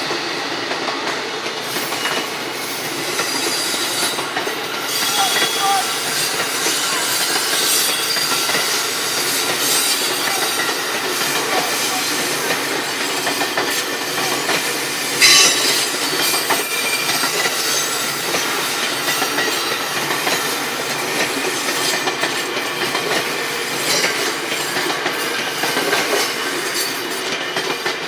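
A train running on the tracks: a steady rolling rumble with squealing wheels and the clack of wheels over rail joints, with one sharp, louder clack about halfway through.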